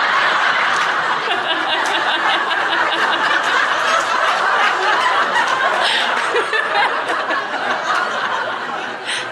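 A large seminar audience laughing together in a hall, a long burst of crowd laughter that dies down near the end.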